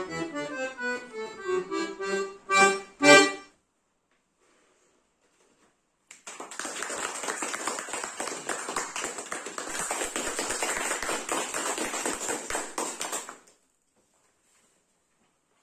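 Piano accordion playing the last bars of a piece, ending on two loud chords. After about two and a half seconds of silence, applause for about seven seconds, then it stops.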